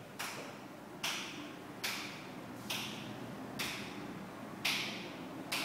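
A steady rhythm of short, sharp strokes, a little more than one a second, each followed by a brief echo off the room.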